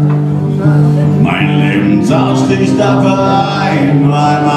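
Acoustic guitar played with a man singing.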